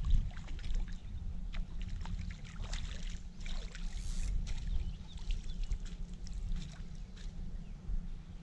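A hooked fish splashing at the surface beside a boat, then a landing net dipped through the water and lifted out with water pouring and dripping off it, over a steady low rumble.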